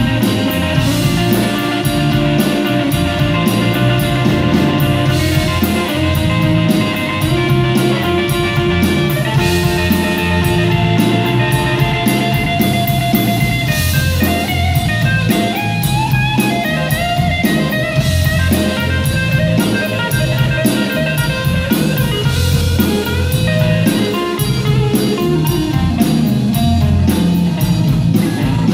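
Live blues band playing: electric guitar over bass guitar and drum kit, with cymbals keeping a steady beat.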